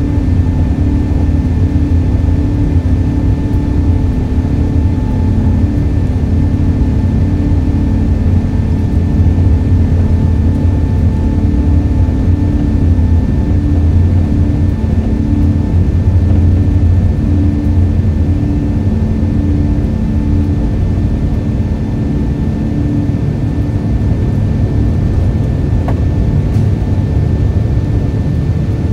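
Airliner turbofan engines at takeoff power: a loud, steady low rumble with a steady whine above it.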